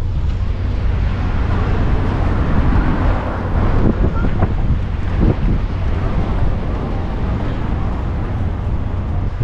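Wind buffeting the microphone over a steady low rumble, with faint voices in the background.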